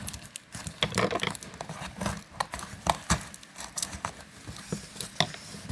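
Light handling noises: a run of irregular small clicks and taps of uneven strength, with some rustle between them.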